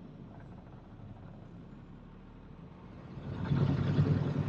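Loaded dump truck's diesel engine running low and steady, heard from inside the cab, then growing louder about three seconds in as it is brought up under load.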